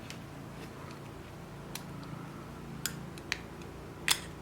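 Four sharp, separate clicks of hard plastic and metal being handled as the belt clip is worked off a Sennheiser EW 100 G3 wireless bodypack transmitter, over a low steady room hum.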